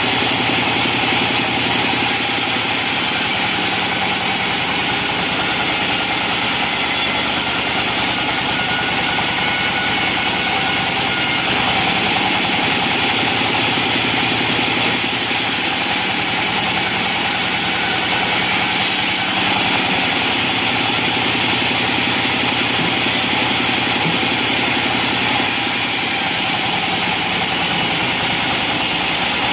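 Band sawmill running steadily: a continuous machine drone with a strong high hiss, its tone shifting slightly every several seconds.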